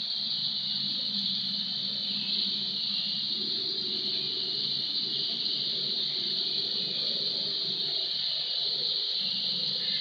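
Water from a three-tier indoor foam fountain splashing down its tiers into the basin: a steady high-pitched hiss with a low rumbling underneath.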